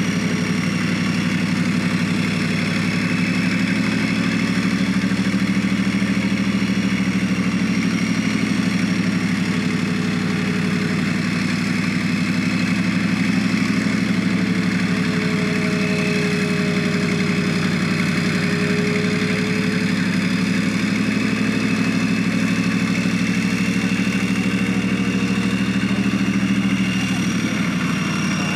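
Leguan bridge-laying tank on a Leopard 2 chassis, its V12 diesel engine running steadily while the hydraulics slide the bridge sections out, with a thin whine over the engine note. The engine note shifts near the end.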